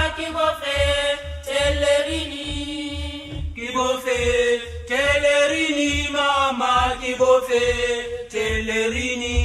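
Background music: a group of voices singing a chant-like song in harmony over a steady low drum beat.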